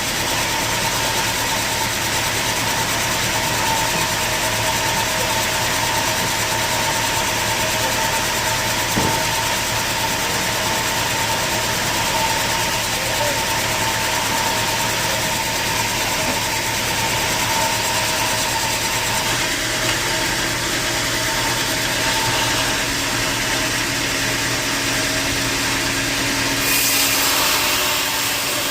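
Sawmill machinery running steadily: a constant engine-like drone with a high steady whine. Near the end a louder hiss joins in.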